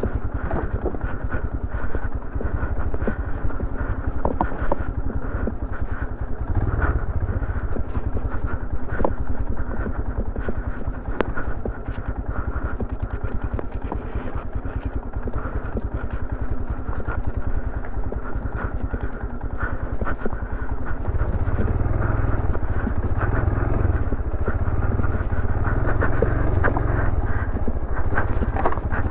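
Royal Enfield Himalayan's single-cylinder engine running as the motorcycle is ridden over a rough off-road trail, with scattered knocks and rattles. It grows louder about two-thirds of the way through.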